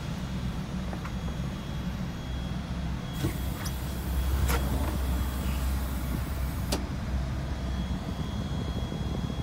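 Isuzu Gala bus's diesel engine idling, heard from inside the cab as a steady low rumble. A hiss with a few clicks comes in about three seconds in and stops about seven seconds in.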